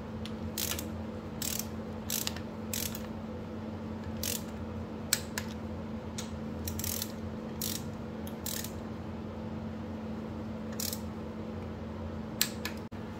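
Ratcheting torque wrench tightening the lower intake plenum bolts, on a second pass up to 19 ft-lb: short bursts of ratchet clicking, one every second or so, as the handle is swung back between pulls. A steady low hum runs underneath.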